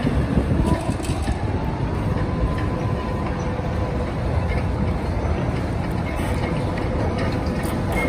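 Ship's deck crane hoisting a loaded clamshell grab out of the cargo hold: a steady, heavy machinery rumble with a faint steady whine over it.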